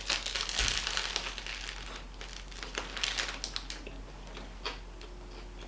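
Paper food wrapper crinkling and rustling in two bursts, then a few scattered crackles.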